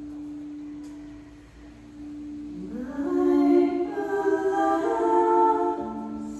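A crystal singing bowl rings with a steady pure tone. About two and a half seconds in, a woman's voice slides up into a wordless sung note and holds it over the bowls. Near the end another bowl tone, lower than the first, comes in.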